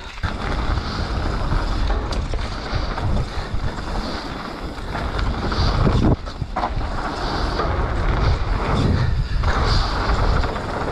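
Wind buffeting the microphone as a mountain bike is ridden fast down a dirt jump line, mixed with tyre rolling noise. The rush dips briefly about six seconds in and again about nine seconds in.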